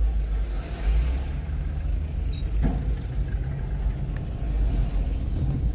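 A car driving slowly, heard from inside the cabin: a steady low engine and road rumble, with a brief click about two and a half seconds in.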